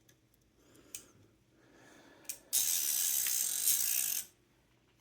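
Small mechanism clicks twice, then about a second and a half of dense, rapid ratchet clicking from a Corona 4 typewriter's ribbon mechanism as the ribbon spool is wound.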